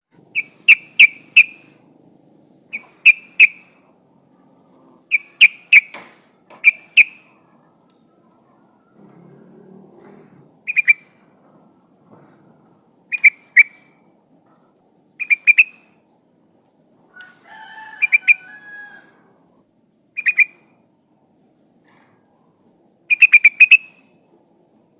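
Yellow-vented bulbul (trucukan) calling: loud, short bubbly phrases of two to four quick notes, repeated every second or two with pauses. It is presented as a female in breeding condition calling a male. A softer, lower warbling call comes in briefly near the middle.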